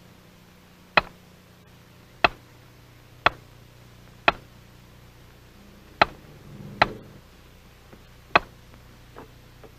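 Mallet striking a chisel into a stone headstone: about eight sharp, single taps, roughly one a second, with a short gap about halfway through.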